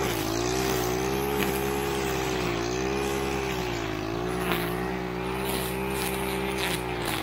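Gas string trimmer cutting dry grass, its engine held near full throttle and sagging and recovering in pitch with each swing, every second or so as the line bites in, with a few sharp ticks.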